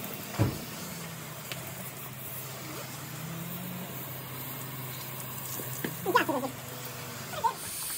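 A steady low mechanical hum, like an engine running, with a sharp thump about half a second in and a short cluster of knocks about six seconds in. Near the end the hiss of a garden hose spray nozzle comes up.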